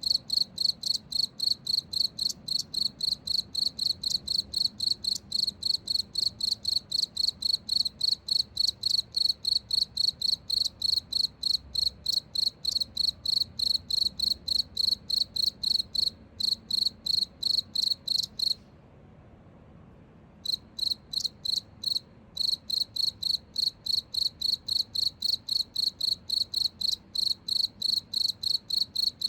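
A cricket chirping in a steady, even rhythm of about three high-pitched chirps a second, falling silent for about two seconds past the middle before resuming.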